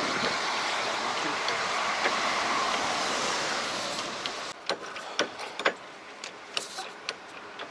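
Volvo truck cab coming down on its hydraulic tilt system: a steady rushing hiss that stops abruptly about four and a half seconds in, then a run of light clicks and knocks.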